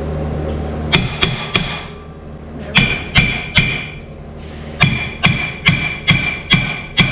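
Hammer blows on a piece of metal that rings after each strike: twelve blows in three groups, three, then three, then six in a steady run.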